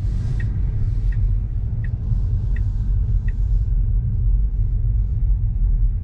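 A car driving, heard from inside the cabin: a steady, loud low rumble of road and engine noise. Five light, evenly spaced ticks, under a second apart, come in the first three seconds or so.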